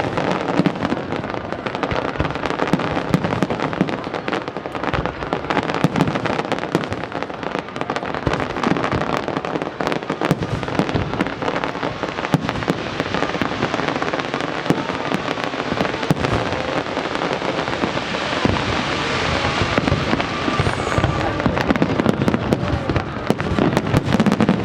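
Aerial fireworks display: a dense, continuous run of sharp bangs and crackles from bursting shells.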